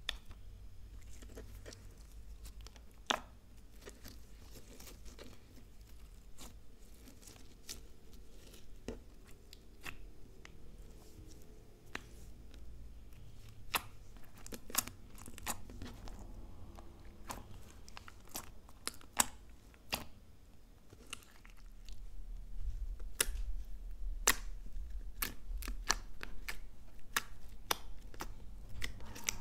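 Slime being pressed, folded and kneaded by fingers, giving scattered sharp sticky pops and crackles, some louder than others. The slime is a clear slime with glittery eyeshadow and lipstick mixed in, and a thick brown slime near the end.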